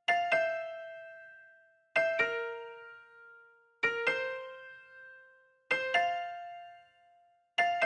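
Background music: a piano-like keyboard playing slow pairs of notes, a new pair struck about every two seconds and each left to ring out and fade.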